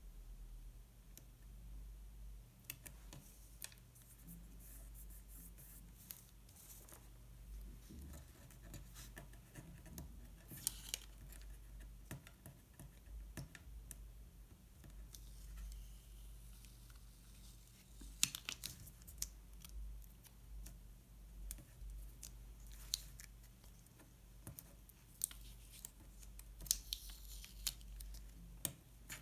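Faint paper-crafting sounds: scattered light taps and clicks with short rustles and crinkles of paper, a few lasting about a second.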